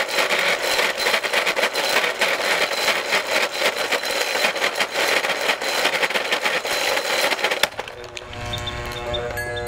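GE blender motor base running flat out with no jar fitted, being run to destruction: a loud, harsh rattling whine. About three-quarters of the way through, the rattle cuts off suddenly as the drive coupling breaks away, leaving a steadier hum made of several tones.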